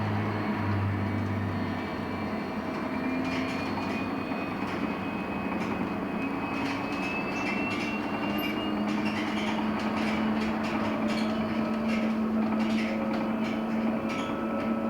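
LiAZ-6274 electric bus under way, heard from inside the cabin: the electric drive hums over steady road noise. A high whine rises slowly in pitch during the first half, and light clicks and rattles come through in the second half.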